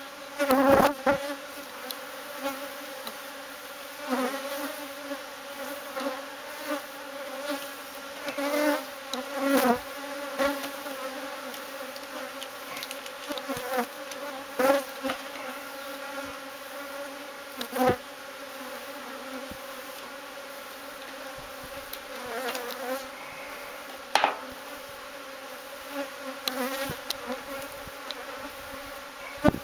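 Honeybee colony buzzing steadily, a many-voiced hum, from an active colony exposed in an opened drum. A few sharp knocks cut through it, spaced several seconds apart.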